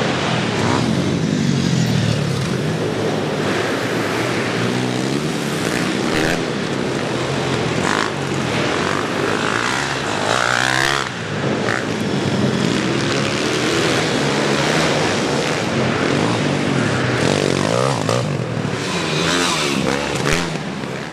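Several pit bike engines revving, their pitch sweeping up and down over and over as the small dirt bikes accelerate and back off, the sounds of more than one bike overlapping inside a hall.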